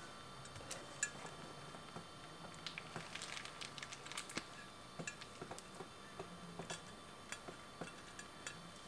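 Faint, irregular light metallic clicks and ticks as stainless lock wire is poked through the drilled head of a two-piece brake rotor's bolt, the wire end tapping against the bolt and rotor.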